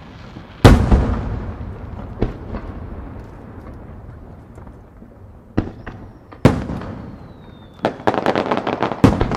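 Aerial firework shells bursting in the sky: a loud bang about a second in, a smaller one soon after, then several more bangs from about five and a half seconds, each trailing a long echoing rumble. A thin whistle falls in pitch, then there is a quick run of crackling pops and a final loud bang near the end.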